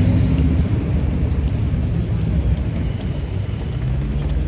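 Busy city street ambience dominated by a loud, steady low rumble, a little louder in the first second.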